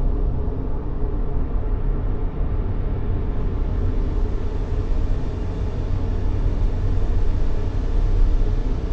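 Steady, unbroken white noise for baby sleep, weighted toward a deep rumble with the hiss fading in the highest notes.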